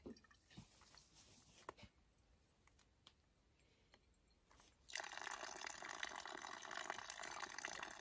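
Spring water from a pipe in the ground dripping and trickling into a bottle. About five seconds in, a steady, louder run of falling water starts suddenly.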